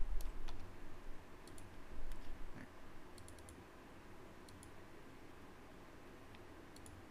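Scattered clicks from a computer keyboard and mouse as a number is typed into a form. There are a few low bumps in the first two and a half seconds.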